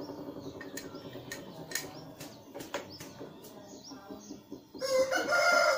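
Birds chirping over scattered light clicks and knocks, then about five seconds in a rooster starts a loud, drawn-out crow.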